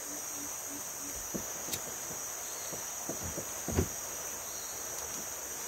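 Steady high-pitched chorus of insects in riverside forest, with a few short soft knocks, the loudest nearly four seconds in.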